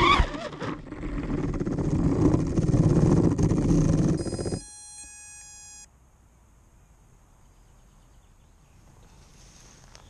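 Crashed FPV quadcopter (GepRC GEP-KX5 with Hypetrain 2306 motors and 5-inch props) lying in tall grass: its motors and propellers churn noisily for about four and a half seconds, then cut off suddenly. A short run of electronic beeps stepping in pitch follows, then only a faint hiss.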